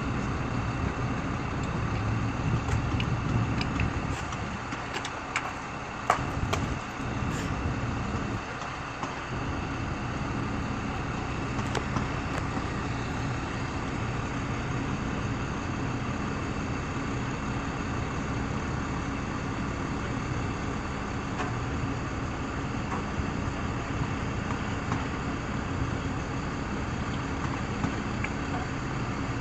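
Fire truck's diesel engine running steadily at idle while it powers the aerial ladder. A few sharp knocks and clatters sound over it in the first seven seconds, the loudest about six seconds in, with one more near twelve seconds.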